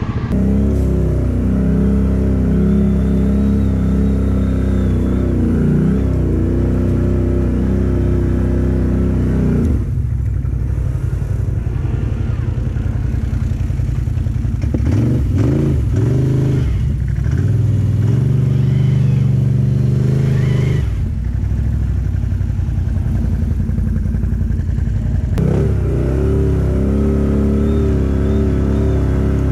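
Quad bike (ATV) engine running under throttle, revving up and down. The engine note drops lower and heavier from about ten seconds in, with several short revs, and goes back to the higher note about twenty-five seconds in.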